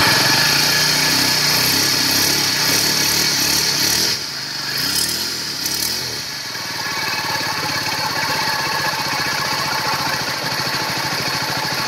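Honda GX22 four-stroke brush cutter engine running at high revs, easing back about four seconds in and then running on steadily at a lower speed. It carries a rough bearing noise, which the owner can't place between the bearing in the drive-shaft housing and a bearing inside the engine.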